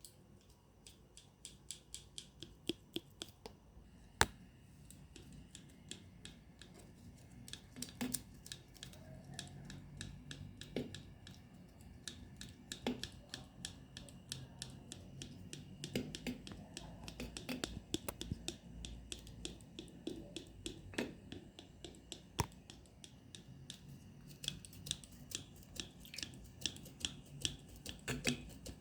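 Clothespins being squeezed open and snapping shut: a long run of sharp, irregular clicks, some in quick clusters.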